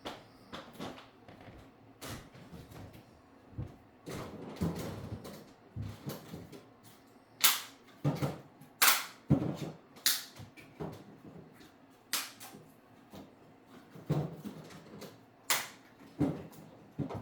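Irregular sharp clicks and knocks, a dozen or more at uneven spacing, the loudest a handful of sharp cracks in the second half.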